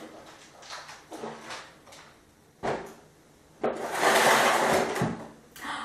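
Plastic items being handled and packed away: a few light knocks, a sharper knock about two and a half seconds in, then about a second and a half of loud scraping as a clear plastic storage box is slid across the floor.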